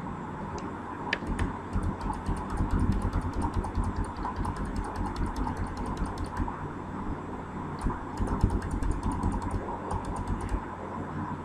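Computer keyboard keys clicking in quick uneven runs as the Backspace key is tapped over and over to delete text, over a steady low hum.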